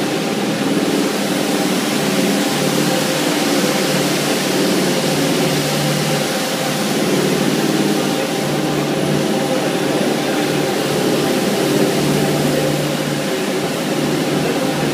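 BRS 320 four-brush automatic carpet washing machine running steadily as it scrubs a foam-covered carpet: a continuous mechanical hum from its brush motors over an even wash noise.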